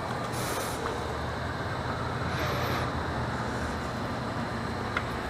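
Steady hiss and low hum of a self-serve car wash pressure wand spraying soap, with two heavy breaths close to the microphone about two seconds apart.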